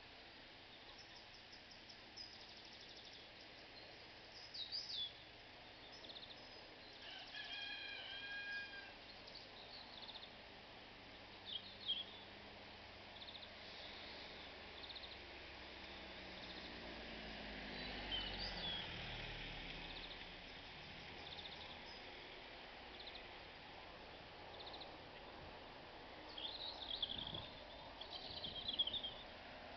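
Faint outdoor ambience with small birds chirping and trilling in short bursts, several times, including a longer pitched call about eight seconds in. A low engine-like sound swells and fades around the middle.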